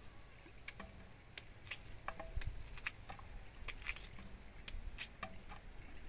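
Knife cutting chayote root (camote) into pieces over a cazuela: soft, irregular sharp clicks and taps, about a dozen.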